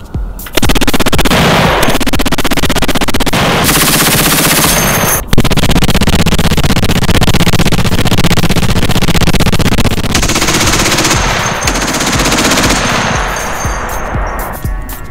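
M2HB-QCB .50-calibre heavy machine gun on a remote weapon station firing sustained automatic bursts. The fire breaks off briefly about five seconds in, resumes, and tapers away near the end.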